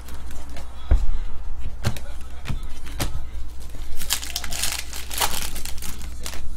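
Trading-card pack wrapper torn open and crinkled by hand, with a few sharp crackles and then a longer stretch of crinkling as the wrapper is peeled off the stack of cards.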